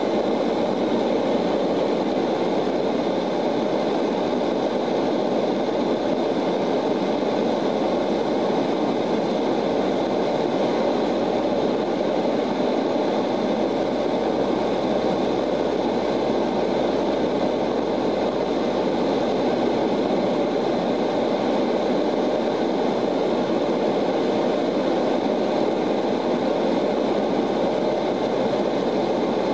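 Steady cabin drone of a Lockheed L-188 Electra's four Allison 501 turboprop engines and propellers in flight, heard through the fuselage by the wing, with a steady high whine over the low hum.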